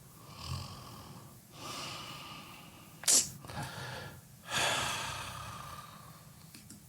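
A man's breathing and sighing close to the microphone: several noisy exhales with no words. A sharp, loud breath burst about three seconds in is the loudest sound, and a long exhale fades out after it.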